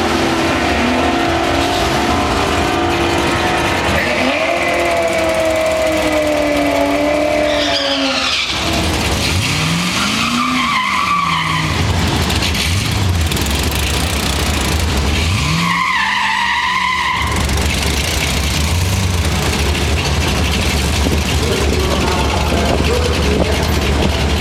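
Camaro and Mustang drag cars doing burnouts: engines revving hard with tires spinning and squealing under a loud, steady noise. The engine pitch swells up and falls back twice.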